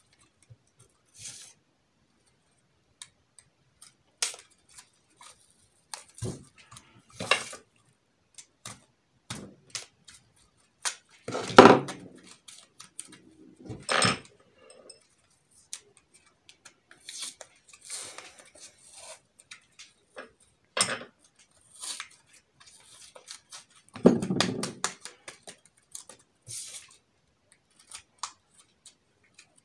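Sticky plaster tape being wrapped, pressed and smoothed around an onion by hand: irregular crackles, rustles and small clicks and knocks on a tabletop, with two louder thumps, one a little before halfway and one about four-fifths through.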